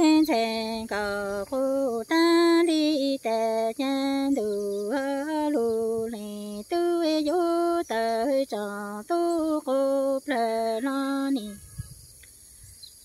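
A woman singing kwv txhiaj, Hmong chanted sung poetry of loneliness, unaccompanied. Her voice moves in short held notes that step between a few pitches. She stops about a second and a half before the end.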